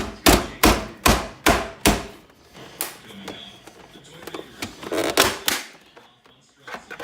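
A rapid run of sharp knocks, about six in the first two seconds, then scattered quieter knocks and rattles, as the top of a Keurig coffee maker is being forced apart.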